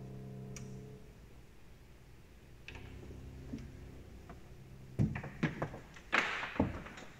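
Final chord on a grand piano ringing and then released about a second in, leaving quiet room tone with a few faint ticks. Near the end comes a series of sharp knocks and thumps, the loudest sounds here.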